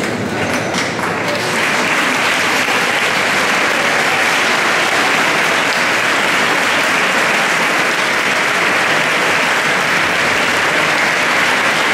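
A large crowd applauding. The clapping builds over the first second or two, then holds steady and dense.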